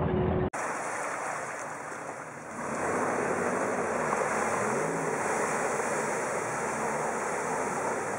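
Jeep engine running, then cut off abruptly about half a second in. It gives way to a Jeep revving in deep mud: a loud steady hiss of spinning tyres and flying mud, with the engine pitch rising in pulls underneath. The hiss swells about two and a half seconds in.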